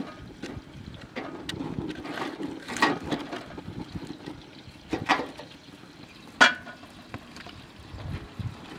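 Wood fire crackling in the firebox of a metal barrel stove, with three louder sharp knocks as the burning logs are pushed in.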